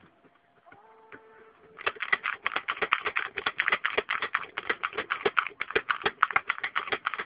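Manual pick gun (snap gun) firing repeatedly into a pin-tumbler lock cylinder: a fast run of sharp metallic clicks, about nine a second, starting a couple of seconds in.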